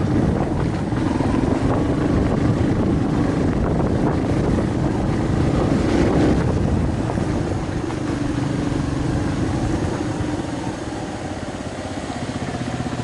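Yamaha Serow trail bike's single-cylinder four-stroke engine running steadily. It eases off slightly in the last few seconds, where its beat becomes more even.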